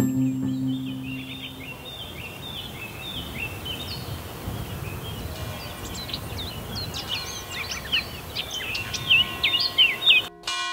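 Wild birds singing: many short chirps and quick whistled notes over a steady outdoor background hiss, getting busier in the second half. Near the end a church bell starts ringing.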